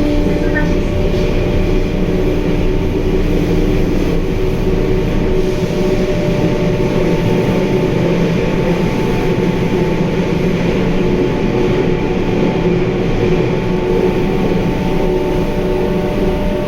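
Inside a Sendai Subway Namboku Line 1000N-series car running at steady speed: continuous wheel-and-rail rumble with steady whining tones from the drive. The deepest rumble eases about five seconds in.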